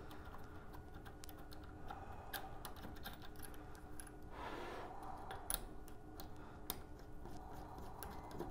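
Scattered light clicks and taps of coaxial cable connectors being handled and fitted to an RF directional coupler, with a brief rubbing or scraping sound about halfway through.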